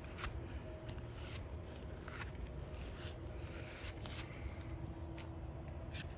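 Quiet outdoor night ambience: a steady low rumble and faint steady hum, with a handful of short soft clicks or rustles scattered through it.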